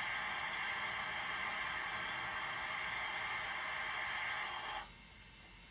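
Steam locomotive blower sound effect played by the DCC sound decoder in a Bachmann OO gauge GWR Dukedog (Earl class) model: a steady hiss that stops near the end.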